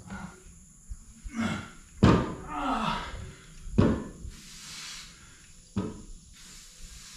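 Plate-loaded belt squat machine worked through reps: the lever arm and its weight plates thunk with each rep, about every two seconds, along with the lifter's effortful breathing.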